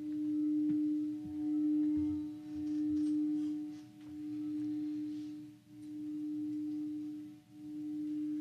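Singing bowl ringing with one steady low tone that swells and fades in slow pulses about every one and a half seconds.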